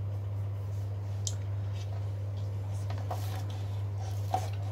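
Steady low electrical hum. Over it come a few faint handling clicks from a clamp meter being set down, and a sharper plastic click near the end as a miniature circuit breaker is switched.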